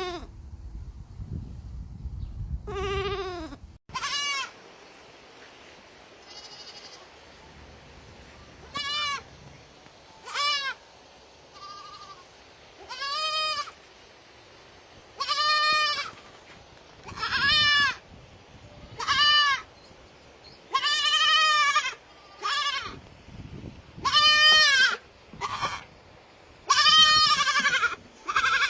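Baby goats (kids) bleating over and over: about a dozen quavering calls a second or two apart, some short and some drawn out.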